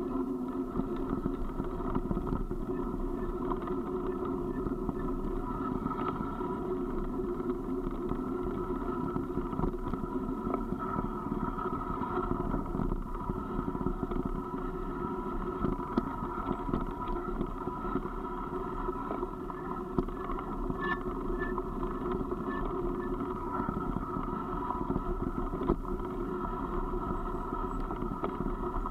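Steady rolling noise of a vehicle's tyres on a gravel road going downhill, with scattered small ticks, heard from a camera riding along.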